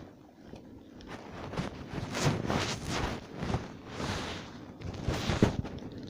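Footsteps of a person walking or moving quickly over rough ground, with rustling, about two steps a second, getting louder from about a second in.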